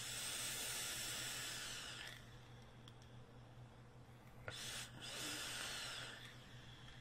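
Two long draws on an Aromamizer Supreme rebuildable vape tank, each a steady airy hiss of about two seconds as air is pulled through the atomizer while the coil fires. The first starts at once, the second about four and a half seconds in.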